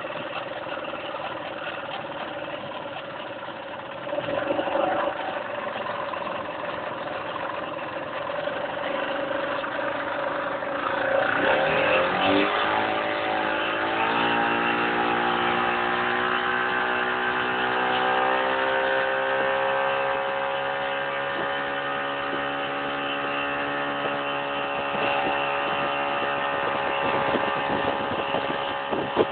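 A boat engine running over water and wind noise; about twelve seconds in it speeds up, its pitch rising, then it holds steady at speed.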